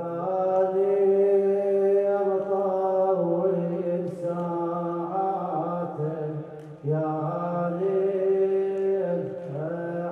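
A man chanting an Arabic Muharram elegy (latmiya) for Imam Hussein, solo and unaccompanied, in long drawn-out held notes. Two sung phrases, with a short breath between them about two-thirds of the way through.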